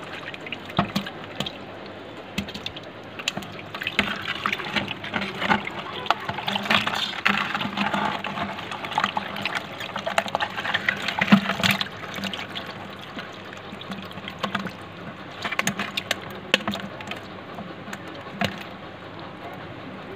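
Water sloshing, splashing and dripping in a plastic bucket as a metal mesh strainer holding live catfish is dipped in and lifted out, the fish thrashing. The splashes come irregularly, busiest in the first half.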